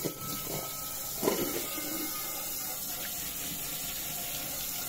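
Tap water running steadily onto an upturned stainless steel saucepan in a sink, rinsing off the cleaner, with a short louder sound about a second in.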